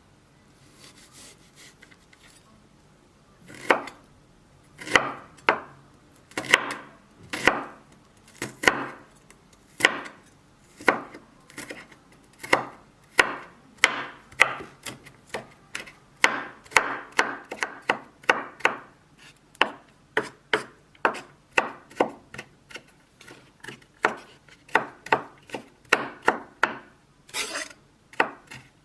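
Knife chopping on a cutting board: a run of sharp strokes that starts a few seconds in, at first about one a second, then speeds up to about two a second.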